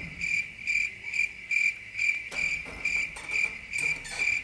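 An electronic beeper sounding a high, steady beep about twice and a half a second, evenly and without change.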